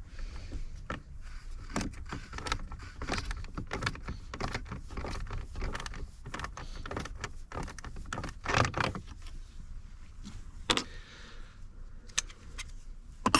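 Hand tools clicking and knocking in a tight space: a small ratchet working the quarter-inch bolts of a car's security gateway module, with a few louder knocks partway through.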